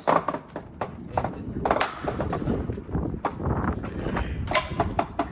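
Irregular knocks and clatter from hands working on a crushed Audi A4's body parts.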